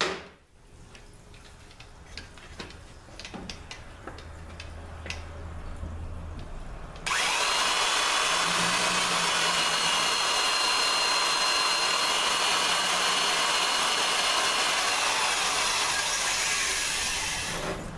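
Old electric drill turning a cutter through a jig guide to open out the aluminium second-and-fifth servo bore of a 5R55S transmission case for a sleeve. After a few faint clicks as the tool is set in place, the drill starts abruptly about seven seconds in, runs steadily with a whine for about ten seconds, and winds down near the end.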